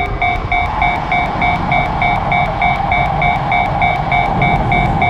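Japanese railroad crossing alarm ringing its 'kan kan' electronic bell, about three strikes a second, with the noise of a passing train building up about a second in.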